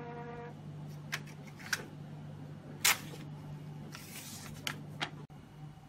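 Built-in printer of a hematology analyzer: its motor whine stops about half a second in, as the printout finishes. Then several separate clicks and knocks, the loudest near the middle, over a steady low hum.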